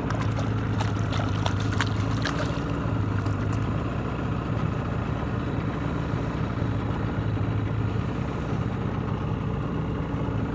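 Boat motor idling with a steady low hum. A few light clicks come in the first few seconds.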